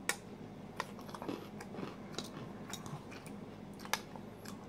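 Metal fork clicking and scraping against a bowl while scooping up meat pie: a scatter of light clicks, two sharper ones near the start and about four seconds in.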